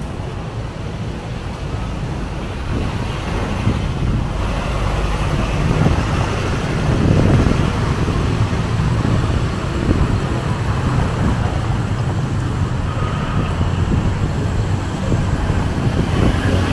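Street traffic: a steady hum of passing motor vehicles, swelling as one goes by about seven seconds in.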